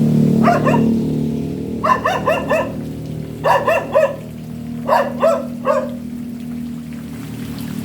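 A dog barking in quick bursts of two to four short barks, about four bursts in all, over a steady low hum.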